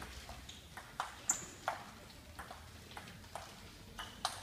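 Table tennis rally: the celluloid ball clicking back and forth off the rackets and the table, a steady run of sharp knocks about three a second.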